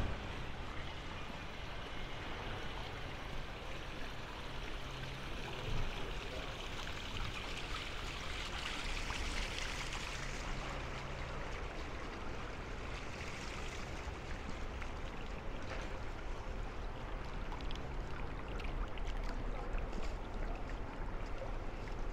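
Steady rushing water with a low hum underneath; the hiss swells for a few seconds near the middle.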